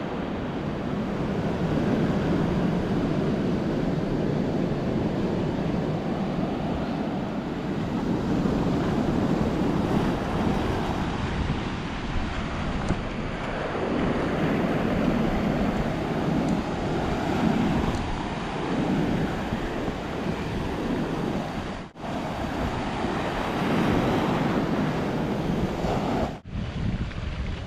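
Sea surf washing onto a beach, swelling and easing every few seconds, with wind buffeting the microphone. The sound drops out briefly twice near the end.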